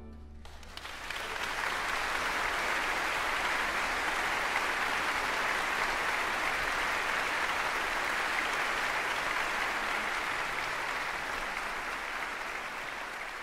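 Applause from a crowd, swelling up over about a second, then holding steady before slowly fading toward the end.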